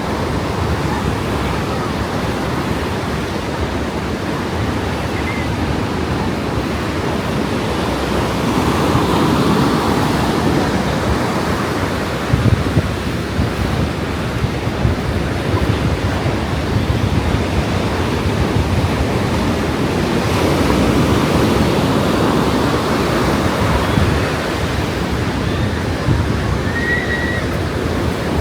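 Ocean surf breaking and washing on a beach, a steady rush that swells up twice.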